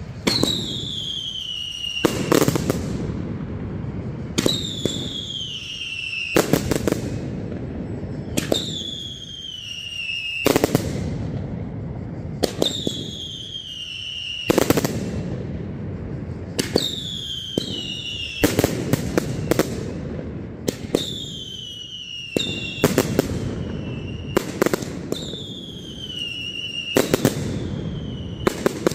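Mascletà fireworks: a falling whistle about every two seconds, each ending in a cluster of sharp bangs, over a steady crackle.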